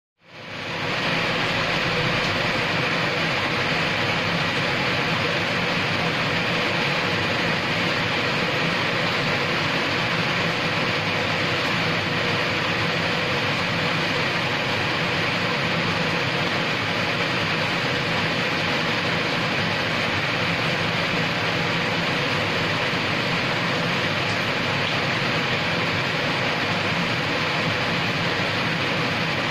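Steady rain falling on a paved courtyard and surrounding roofs, an even, unbroken hiss of rainfall.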